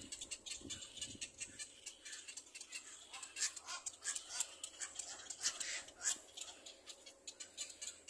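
Birds calling: a busy run of short, high chirps and clicks, thickest in the middle few seconds.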